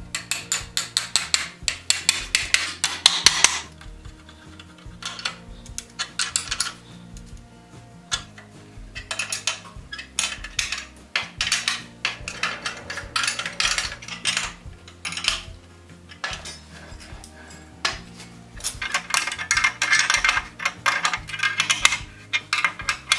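Ratchet wrench tightening nuts on the iron clips that hold a wagon's rear axle to its wooden bolster: bursts of rapid metallic clicking, five runs of two to four seconds each, over quiet background music.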